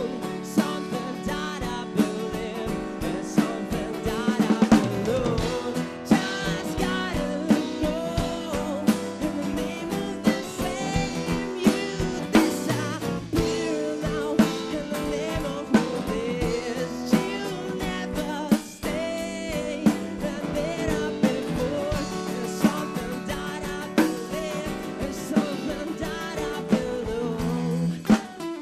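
Live band playing a rock song on drum kit and guitar with singing; the song ends near the end.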